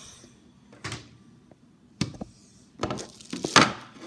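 Knocks and clattering of refrigerator parts being handled during cleaning, ending in a loud scraping rustle near the end.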